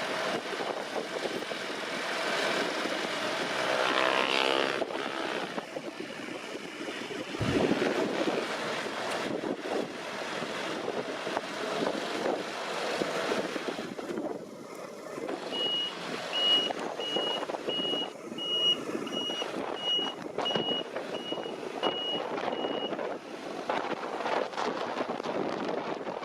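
Deutz-Fahr C9306TS combine harvester running steadily at work. Midway a reversing alarm beeps about twice a second for some seven seconds.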